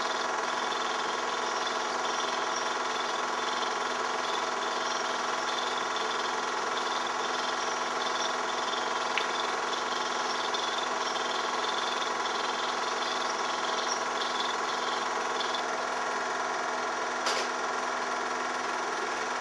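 Film projector running: a steady mechanical whirr of its motor and film transport, with one brief click near the end.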